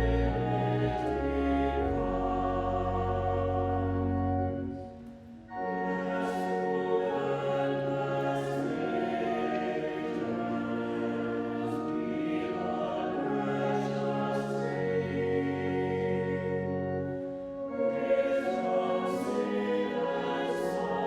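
A choir singing a slow hymn in long, sustained chords, with a brief pause about five seconds in.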